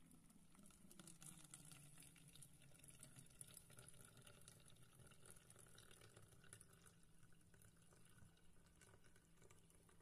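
Faint trickle of boiling water poured in a thin stream onto ground coffee in a filter over a cup.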